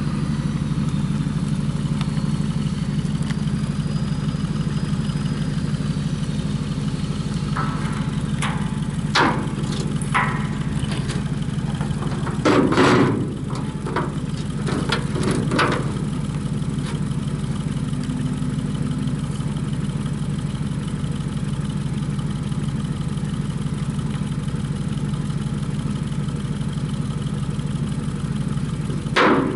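A small engine idling steadily, with a run of clatters and knocks about a third of the way in and one sharp knock near the end.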